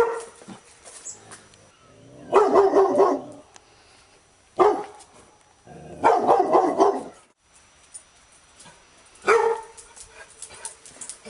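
Labrador retriever barking in separate outbursts a few seconds apart: short sharp barks at the start, about four and a half seconds in and about nine seconds in, and two longer, drawn-out barks around two and six seconds in.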